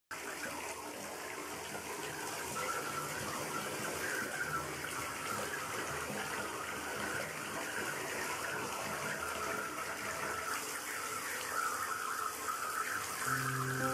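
Water running steadily into a bathtub from the tap, an even rushing noise. Music comes in near the end.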